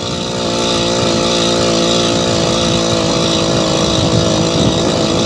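Motorized bicycle's small engine running steadily while under way, its pitch holding even and getting a little louder about half a second in.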